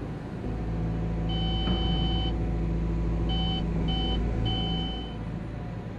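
Cat 320 excavator's diesel engine running steadily as the upper structure swings, with a series of electronic beeps from the cab: one long beep about a second in, then three shorter ones. The beeps are the E-fence swing alert as the swing reaches its set limit.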